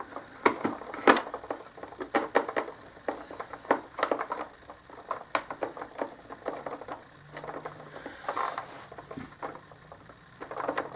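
Irregular clicks and knocks of hard plastic parts and screws being handled while the two handle sections of a carpet shampooer are screwed together.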